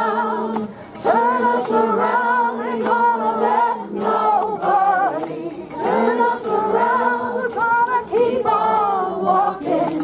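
A group of people singing together without accompaniment, in held notes, phrase after phrase with short breaks between.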